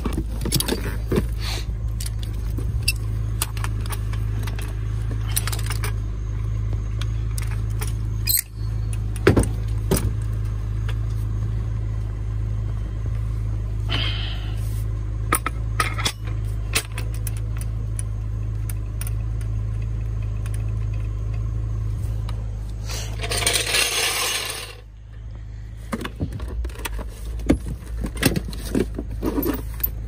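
Scattered metal clinks, knocks and scrapes from a steel floor jack and its handle being positioned and fitted, over a steady low hum. The clinks come thicker near the end, and a brief loud rush of noise comes about three-quarters through.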